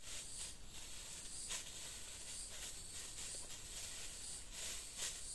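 Steady high-pitched insect drone in forest, with a few brief rustles and snaps of leaves and brush as someone moves through the vegetation, about one and a half, two and a half and five seconds in.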